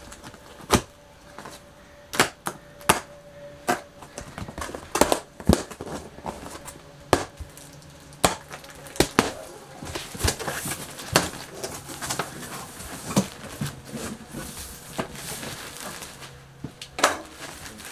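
Cardboard shipping box being opened by hand: irregular knocks, taps and scrapes as the tape is pulled and the flaps are worked open. From about ten seconds in, rustling of the plastic wrap around the contents joins in.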